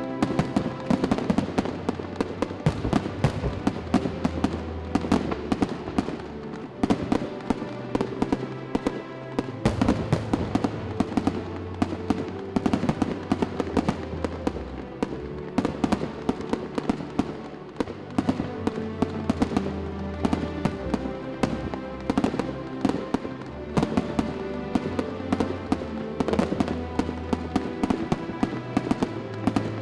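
Aerial fireworks shells bursting and crackling in rapid, continuous succession, with music playing along underneath.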